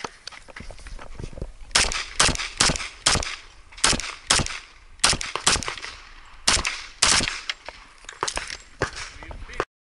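STI 2011 Edge pistol in .40 S&W fired in rapid strings, more than a dozen shots mostly in pairs a few tenths of a second apart. Each shot has a short ring after it, and the sound cuts off suddenly near the end.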